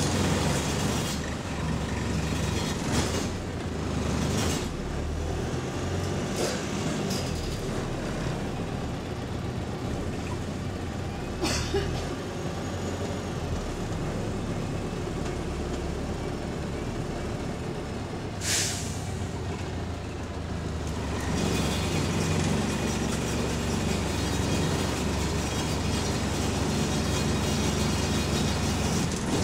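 Bus interior on the move: the engine's steady drone under a constant rattling of loose interior parts. A short hiss of released air comes about eighteen seconds in, and the engine grows louder again a few seconds later.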